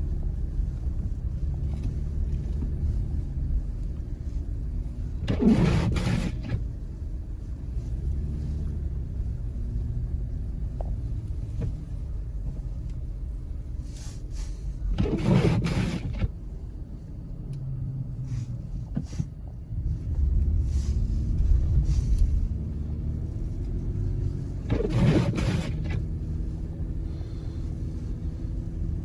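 Low rumble of a vehicle driving through unplowed snow, with a brief swish that comes three times, about every ten seconds.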